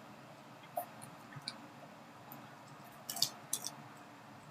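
A few faint, scattered sharp clicks and taps, about four or five over several seconds, with nothing else but a low steady background.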